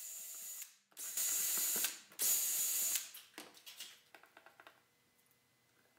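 18-volt cordless drill running in three short bursts, its bit cutting into a quarter-inch plexiglass sheet, followed by a few faint clicks.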